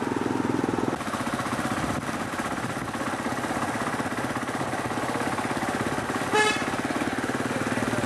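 Motorcycle engine running steadily while riding, with a short horn toot about six seconds in.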